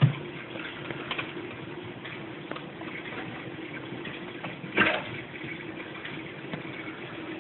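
Aquarium water running and bubbling over a faint steady hum, the sound of the tank's filter. A low thump comes right at the start and a short sharp noise about five seconds in.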